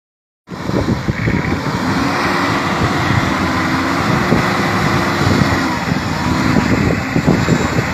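Toyota Hilux pickup's engine revving under load as the truck drives through mud, its pitch rising and falling with the throttle. The sound starts suddenly about half a second in.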